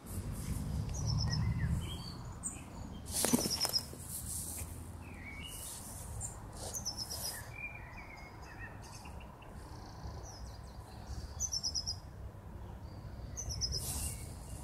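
Small birds singing: high, thin chirps and quick runs of repeated notes from more than one bird, over a steady low rumble. There is a brief louder rush of noise about three seconds in and again near the end.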